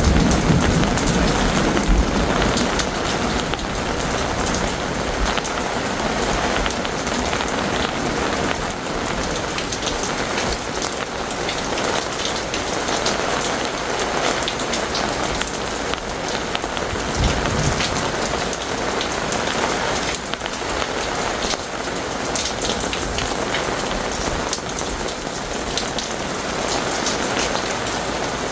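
Heavy rain falling steadily, with many individual drops striking close by. A low rumble of thunder dies away in the first few seconds.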